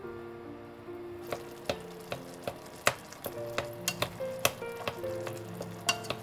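Food sizzling in a pot or pan while it is stirred, with many sharp clicks of the utensil against the pan. Soft background music plays throughout.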